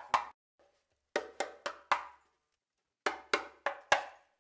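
Skin-headed hand drum played with bare hands in short runs of quick strokes, four or five at a time with pauses between, each stroke ringing briefly.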